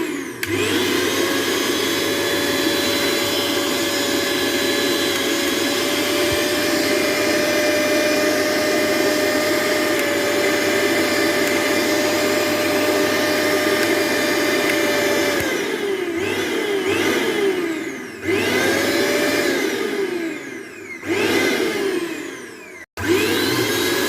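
Crompton mixer grinder's motor spinning up and running at full speed with a steady high whine for about fifteen seconds, then switched off and on in short pulses, the whine falling in pitch each time it coasts down and rising again as it restarts.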